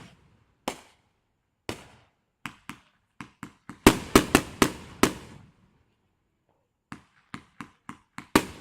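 Fireworks going off in a string of sharp bangs, each with a short fading tail. The loudest come in a quick cluster about four to five seconds in, then there is a pause of about a second and a half before more bangs near the end.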